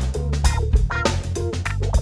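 Logo intro music with a steady drum beat, about two strong hits a second, over a heavy bass line.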